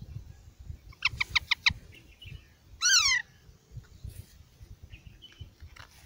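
Parakeet chicks calling: a quick run of about six sharp chirps about a second in, then a loud call of rapidly repeated falling notes about three seconds in, and a few faint chirps near the end.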